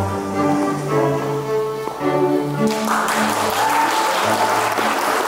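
Instrumental music with long held notes; about three seconds in, applause breaks out over it and continues.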